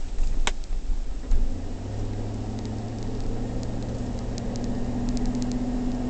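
Engine and road noise of a 2008 GMC Denali heard from inside the cabin while driving, a steady low hum that firms up about a second and a half in. A single sharp click comes about half a second in.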